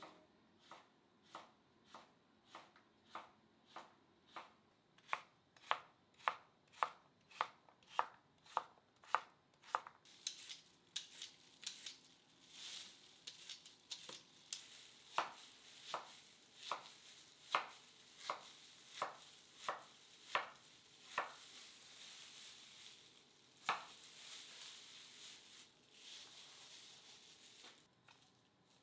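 A kitchen knife chopping on a cutting board, about two even strokes a second for roughly the first ten seconds. Then a vegetable peeler scraping the skin off a daikon radish in quick, irregular strokes.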